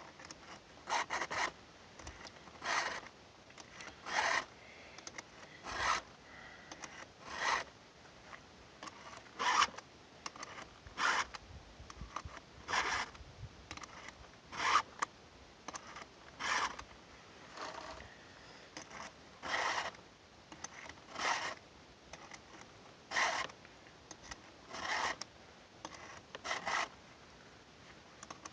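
Round chainsaw file in a filing guide rasping across the cutter teeth of a Stihl MS 290's chain, one stroke roughly every one and a half to two seconds. These are the file strokes of sharpening the chain.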